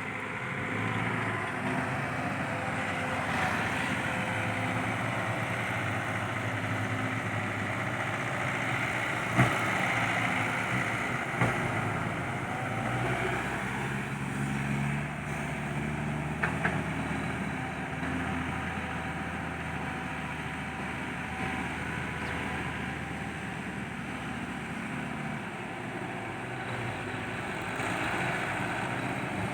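Diesel engine of a CAT 312B hydraulic excavator running steadily, its note rising and falling with the load of digging. A few sharp knocks sound about nine, eleven and sixteen seconds in.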